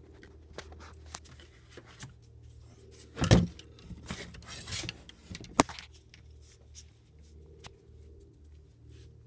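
Handling noise: scattered clicks and knocks, with a loud thump about three seconds in and a sharp click near the six-second mark, over a steady low hum.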